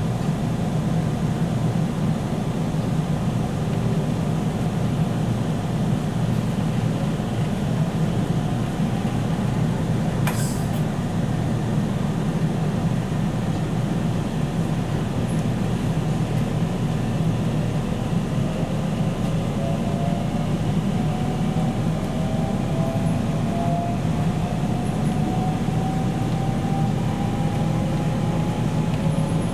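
Inside a JR Central 313 series electric commuter car accelerating away from a station: a steady rumble of wheels and running gear, with the whine of the electric traction drive rising slowly in pitch as the train gathers speed, most plainly in the last ten seconds. A single sharp click about ten seconds in.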